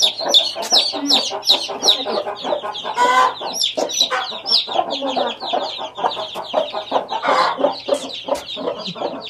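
A brood of newly hatched chicks peeping without pause, a rapid stream of high, downward-sliding peeps, with a mother hen's low clucking underneath.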